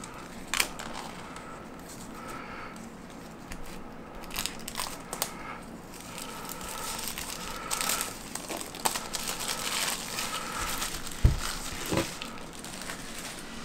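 Clear plastic shrink wrap being peeled off a small cardboard box, crinkling and crackling on and off, with two low thumps near the end. Recorded through Apple AirPods Pro microphones.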